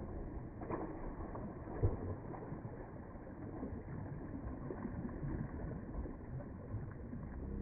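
Shallow sea water sloshing and splashing at the shoreline, as waves are kicked, with a sharp thump about two seconds in.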